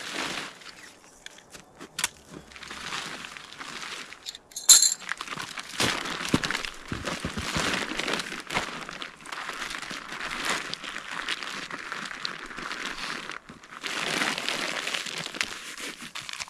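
Nylon tent fabric rustling and crinkling as the tent is folded, rolled and stuffed into its stuff sack, with one sharp click a little before the halfway point.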